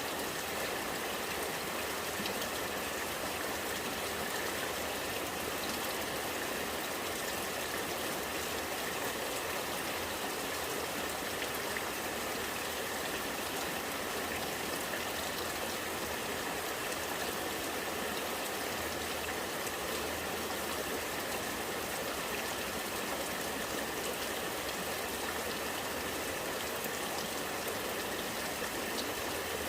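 Rainwater gurgling as it runs off in a steady stream, with rain falling.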